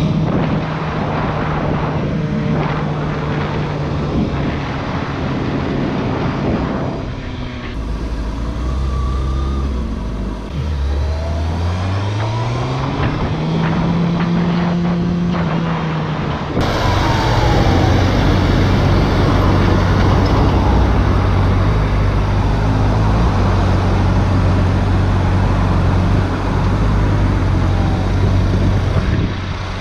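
Sport motorcycle engine running under the rider, with road and wind noise. The engine note holds steady at first, climbs in pitch as the bike accelerates around the middle, then settles to a lower steady note for the rest.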